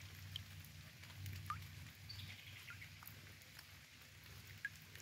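Faint shallow creek water running over rocks, with scattered small drips and plinks.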